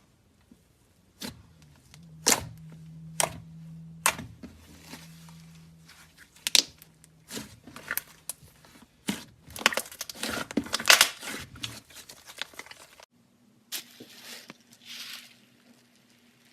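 Slime being played with by hand: sharp sticky pops and crackles, thickest in a run of quick crackling about nine to twelve seconds in.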